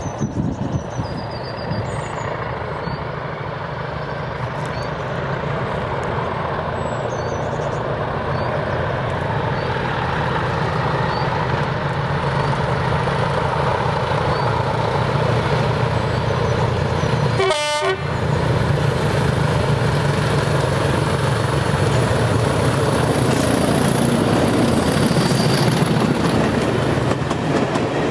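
Class 20 diesel locomotive hauling a train of coaches, approaching and passing, its engine sound growing steadily louder as it nears, then the coaches rolling by on the rails.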